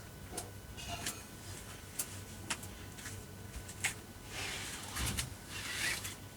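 Hands rubbing and pressing on a person's body during a massage: soft, scattered clicks and skin-and-cloth rustling, with a longer rustle near the end.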